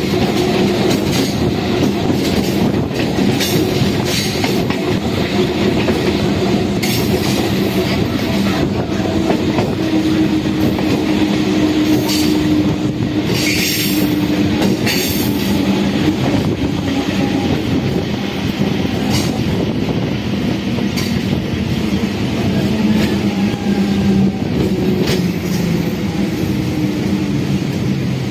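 MEMU electric multiple-unit train running along the track, heard from its open doorway: a steady rumble of wheels on rails with irregular sharp clacks, under a low hum that wavers in pitch.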